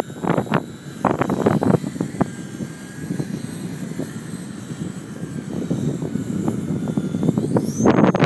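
Typhoon 3D RC stunt plane's motor and propeller whining thinly overhead, its pitch climbing sharply near the end as the throttle opens, under heavy gusts of wind buffeting the microphone.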